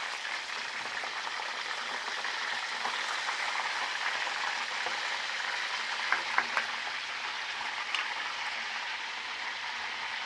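Whole mojarras deep-frying in hot oil in a copper cazuela: a steady sizzle with crackle. A few sharp clicks come about six seconds in and once more near eight seconds.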